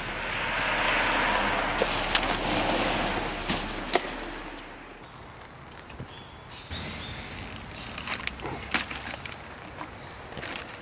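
A car passing on a wet street: a swell of tyre noise, loudest about a second in, that fades away by about five seconds. Then plastic shopping bags rustle, with small knocks and clicks as groceries are handled at a car's open boot.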